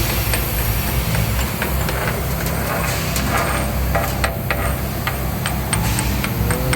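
An engine running steadily at low speed, with irregular light clicks and taps over it.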